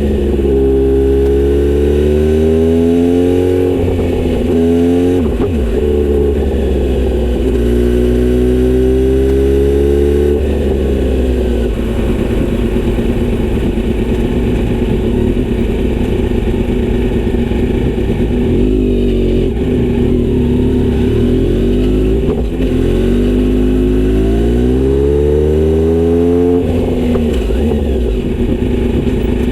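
Kawasaki Z900RS inline-four running through a Misty Kintaro short-pipe exhaust with a 70 mm silencer. Three times, at the start, around eight seconds in and near the end, the engine note rises steadily for a few seconds and then drops off sharply. Between these rises it runs at a steadier pitch.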